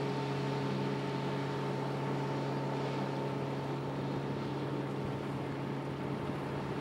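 Outboard boat motor running at a steady speed: a constant hum of unchanging pitch with an even hiss over it.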